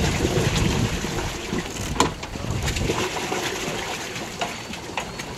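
Wind buffeting the microphone for the first second and a half, over a steady hiss of water, with a few sharp knocks.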